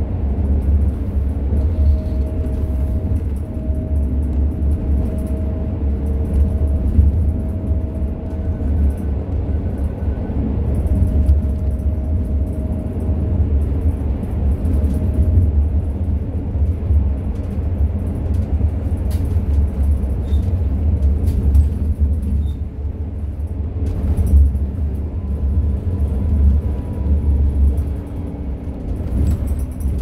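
Inside a seated city bus on the move: engine and road noise make a steady low rumble. A faint whine comes and goes during the first half, and a few light clicks and rattles sound later on.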